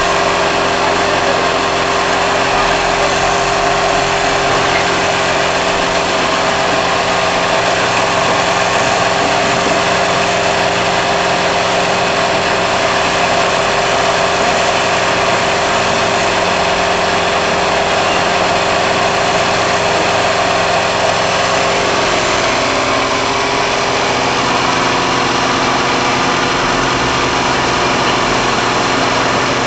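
Mortar plaster spray machine running steadily while cement mortar is sprayed through its hose and air-fed spray gun: a continuous mechanical hum of several steady tones over a broad hiss, shifting slightly in pitch about three-quarters of the way through.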